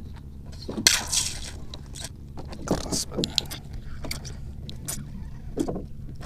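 Hands working a fishing hook out of a caught fish's mouth: irregular scraping, clicking and rustling, loudest about a second in and again near three seconds, over a steady low hum.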